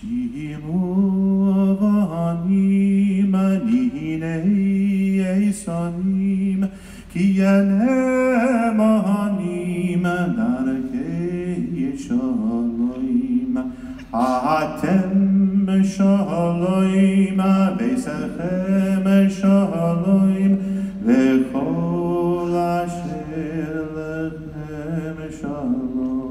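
Voices chanting a slow, mantra-like song in held notes that step up and down in short repeating phrases: the singing of a sunrise-welcoming ritual.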